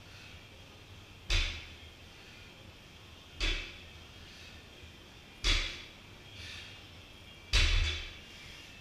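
Loaded barbell with rubber bumper plates set down on a wooden lifting platform four times, about every two seconds, as deadlift reps touch the floor. Each is a heavy thud with a brief rattle, and the last is the loudest.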